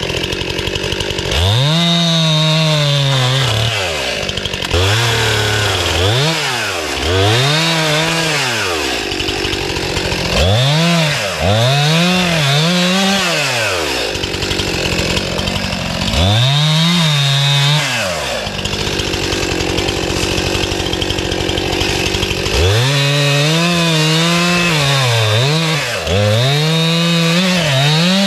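Stihl gas chainsaw cutting limbs from a fallen tree: the engine is revved up to full speed for a second or three at a time, about eight times, dropping back to idle between cuts, with a longer stretch at idle past the middle.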